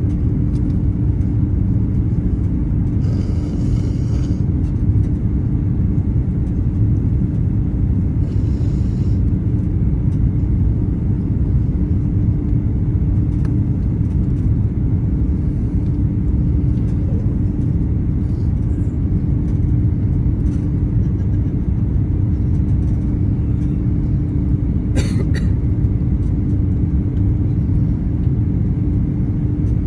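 Steady low cabin roar inside an Airbus A340-600 on approach with flaps extended: its four Rolls-Royce Trent 500 engines and the airflow, with a steady hum underneath. A couple of sharp clicks come about 25 seconds in.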